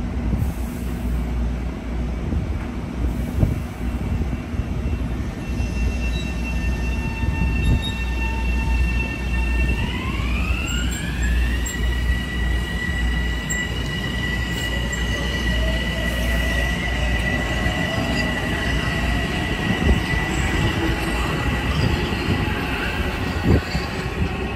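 Train passing on the Hudson Line with a high whine of several tones that rise together in pitch about ten seconds in and then hold steady, over a low rumble.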